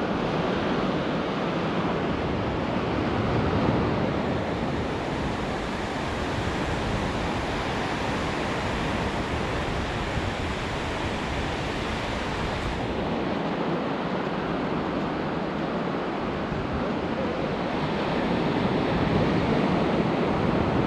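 Ocean surf washing onto a sandy beach: a steady rush of breaking waves that swells and eases slowly.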